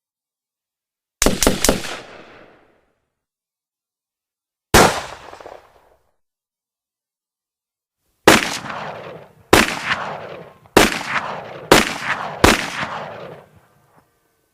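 Gunshots: a rapid burst of four about a second in, a single shot near five seconds, then five separate shots about a second apart, each followed by a long echoing tail.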